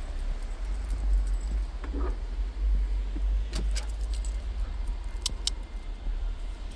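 Metal leash snap and collar hardware clinking and jingling a few times as the dog moves on the leash, over a steady low rumble.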